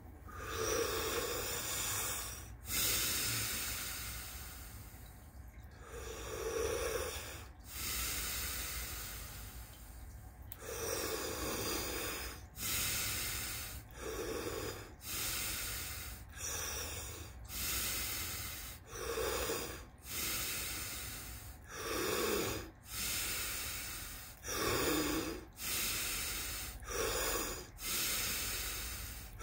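A man doing Wim Hof power breathing: deep, rushing inhales and forceful exhales through pursed lips, about a dozen full breaths. They come slowly at first, then about one every one and a half to two seconds from ten seconds in. A steady low hum runs underneath.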